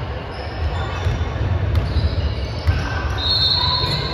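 Basketball being dribbled on a hardwood gym floor during play, a run of low thuds, with a high squeak starting about three seconds in.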